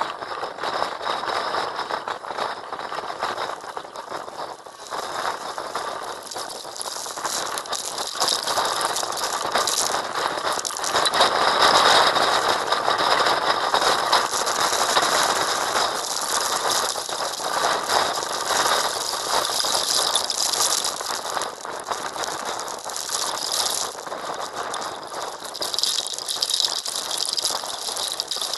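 Heavy rain pelting glass, a dense rattling patter that swells to its loudest about twelve seconds in.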